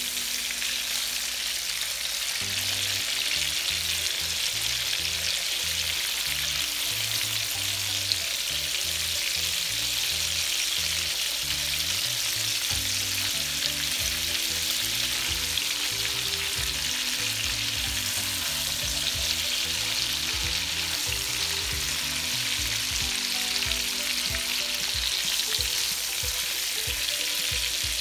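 Hilsa fish steaks sizzling steadily as they shallow-fry in ghee and vegetable oil in a nonstick wok, while a silicone spatula nudges and turns them now and then. The fish is only being lightly fried, to take off its raw edge.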